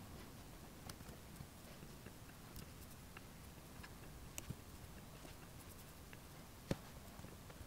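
Faint room tone with scattered soft clicks from working at a laptop, one sharper click near the end.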